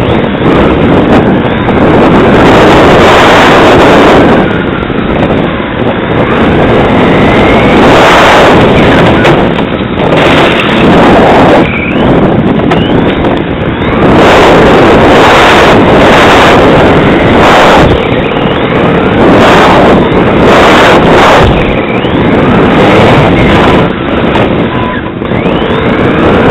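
Tamiya TT-01 electric RC car running flat out on asphalt, heard loud and harsh from the camera riding on its body: a dense rush of motor and drivetrain whine with tyre noise. A faint pitch rises and falls with the throttle, and the noise dips briefly every few seconds.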